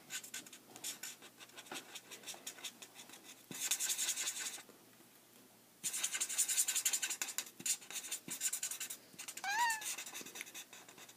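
Felt-tip nib of a Spectrum Noir alcohol marker scratching across card in quick, repeated flicking strokes, blending the lightest grey out toward the edges. The strokes come in a steady run, with two longer stretches of denser scratching. A single short high squeak, rising and then falling, comes about nine and a half seconds in.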